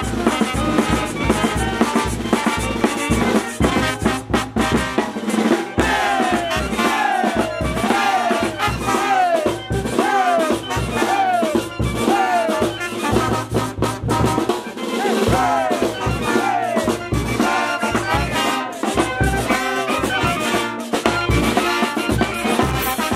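A brass band of trumpets, trombones, saxophones and sousaphones plays over a bass drum and cymbals. Through the middle stretch the horns repeat a string of short falling slides, about one a second.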